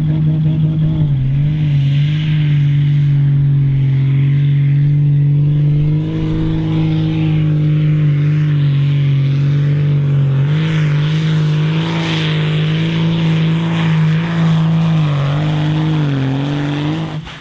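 Modified pulling tractor's diesel engine running flat out under load as it drags the weight sled, a loud steady drone that wavers slightly in pitch a few times and cuts off abruptly near the end.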